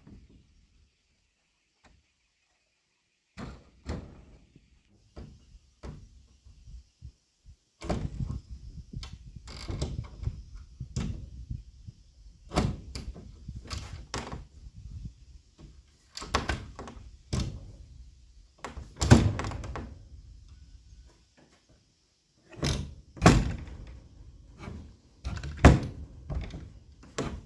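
Irregular wooden knocks and thuds of timber pieces being handled and fitted together for a wooden window frame. They are sparse at first, then come thick and fast from about eight seconds in, with a few heavy thuds.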